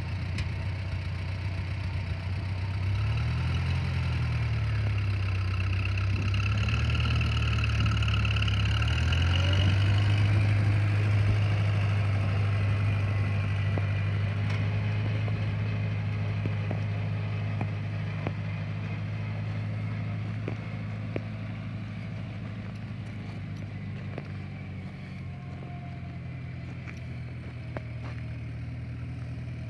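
International 184 compact tractor's engine running just after starting, its speed rising and falling a few times in the first several seconds, then running steadily and slowly fading as the tractor drives away.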